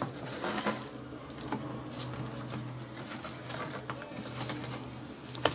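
Jars being handled and shifted in a cardboard box: scattered light clicks, taps and scraping rustles, a couple of sharper taps about two seconds in and near the end, over a steady low hum.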